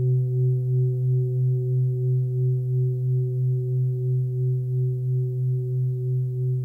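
A 26.5 cm hand-forged Full Moon singing bowl ringing on its deep 130 Hz tone with a few higher overtones, pulsing gently about two to three times a second as it slowly fades.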